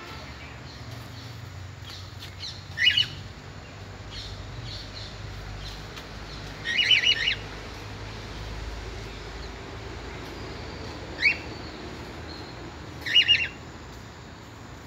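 Caged birds in an aviary squawking in four short bouts, each a quick run of a few calls, the longest about seven seconds in.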